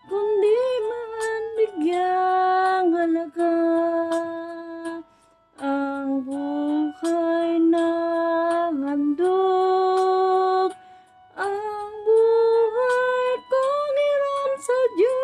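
A woman singing a slow Tagalog ballad solo, holding long notes with short breaks between phrases.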